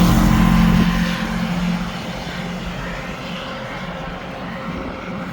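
Rushing wind and road noise while riding an Inmotion V12 electric unicycle at around 25–30 km/h. It is loudest over the first two seconds, with a steady low hum, then settles to a steadier rush.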